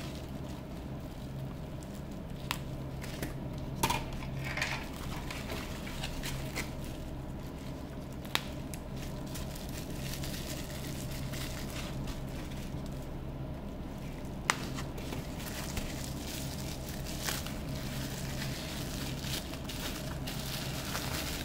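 Bubble-wrap and foil bubble packaging crinkling and rustling as wrapped metal parts are handled and unwrapped, with a few sharp clicks. A steady low hum runs underneath.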